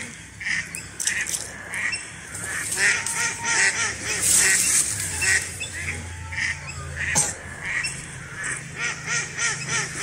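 Waterfowl on the water calling over and over, a quick run of short calls, several a second.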